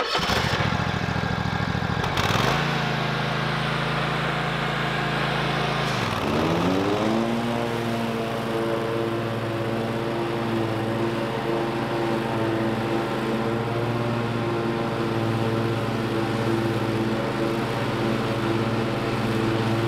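Toro TimeCutter MyRide zero-turn mower's engine running under load as it mows thick, tall, wet field grass. About two seconds in the sound steps up, and about six seconds in the pitch dips briefly and then rises, holding steady from there: the engine does not bog down in the heavy grass.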